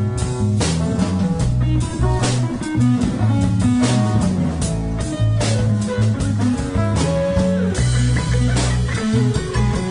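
Live band playing an instrumental passage: strummed acoustic guitar, electric lead guitar, electric bass and drum kit.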